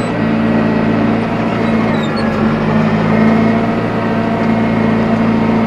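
Tractor engine running with a steady drone, heard from inside the cab, while it pulls and drives a four-rotor hay rake.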